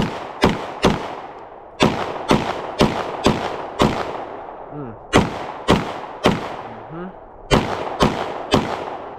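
Springfield Armory Echelon 4.0C 9mm pistol fired rapidly, a magazine dump of about fourteen shots. The shots come in strings of three to five, about half a second apart, with short pauses between, and each shot leaves an echoing tail.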